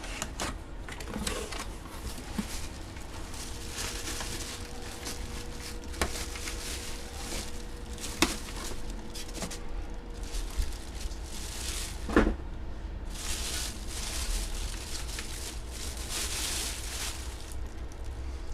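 Trading cards and their plastic holders being handled: rustling and sliding, with scattered sharp clicks and taps, the loudest about eight and twelve seconds in, over a steady low hum.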